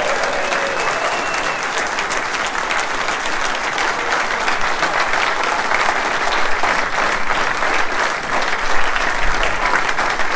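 A large audience applauding, with dense, steady clapping.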